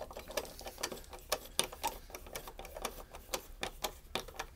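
Screwdriver turning the screw that holds the plastic handle onto a Mansfield wall hydrant, making a run of irregular light clicks, a few a second.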